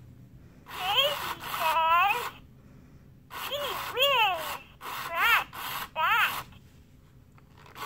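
Furby Baby toy's electronic voice babbling in Furbish: four short bursts of warbling, sliding-pitch chatter with short pauses between them.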